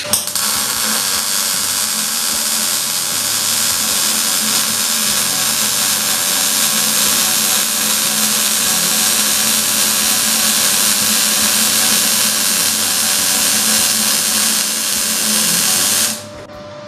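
MIG welding arc on 0.9 mm car-body sheet steel: a steady, even crackle that strikes up with a couple of sharp pops at the start and cuts off abruptly about a second before the end.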